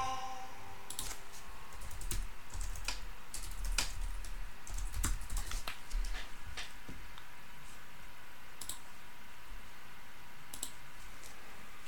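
Typing on a computer keyboard: irregular key clicks, busier in the first half and thinning out to a few scattered taps later.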